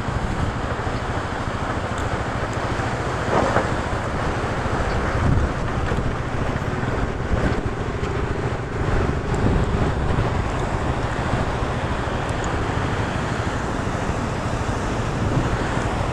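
Motorcycle engine running as the bike rolls slowly over a rocky dirt track, mixed with the steady rush of a white-water river alongside and wind noise on the microphone.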